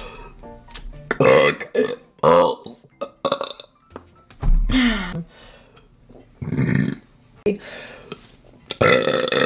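A woman burping repeatedly, a string of separate loud burps, some sliding down in pitch.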